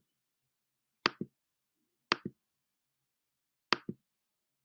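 Computer mouse button clicked three times, about a second apart, each click a quick double snap of press and release, as menu items are selected in a web form.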